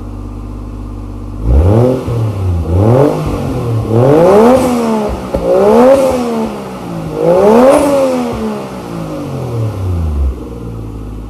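A car engine running with a steady low hum and revved about five times, each rev rising then falling in pitch, the highest revs in the middle, before it settles back to idle near the end.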